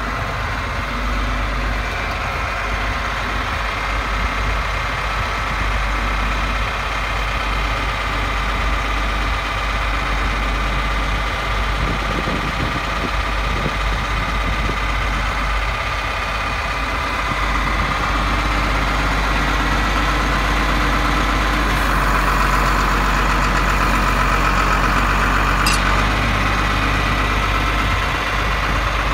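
1984 John Deere 4850 tractor's six-cylinder turbo diesel idling steadily, growing a little louder in the last third.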